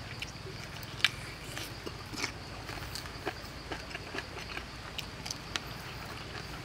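A man eating with his fingers and mouth: irregular wet smacks and small clicks as he chews cooked snake meat and pulls it off the bones, with one sharp click about a second in. A steady low hum runs underneath.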